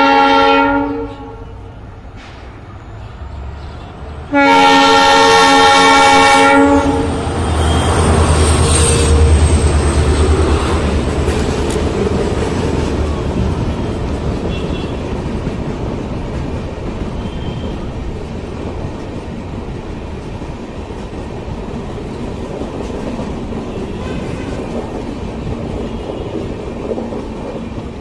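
WDP4D diesel locomotive sounding its multi-note horn: a blast cut off about a second in, then a second blast of about two seconds starting about four seconds in. The locomotive's engine then passes with a low rumble, followed by the steady clatter of express passenger coaches running through without stopping, slowly fading.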